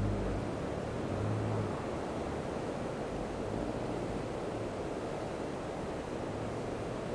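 Floodwater of the swollen Winooski River pouring over a dam spillway and churning below it: a steady, even rush of whitewater.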